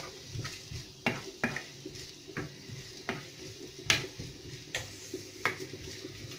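Wooden spoon stirring chopped onion in oil in a nonstick frying pan, knocking against the pan about seven times at uneven intervals, the loudest knock about four seconds in.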